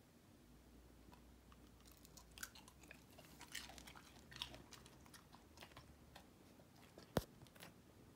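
Dachshund chewing a piece of breaded deep-fried perch: a run of faint, crisp crunches, densest about two to five seconds in. A single sharp click about seven seconds in is the loudest sound.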